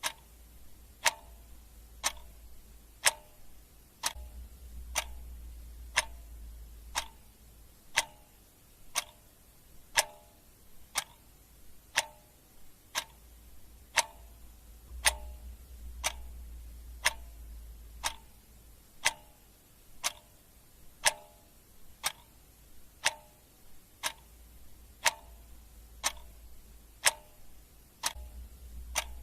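Clock ticking sound effect: a sharp tick about once a second, each with a short ring, keeping a steady even rhythm over a faint low rumble.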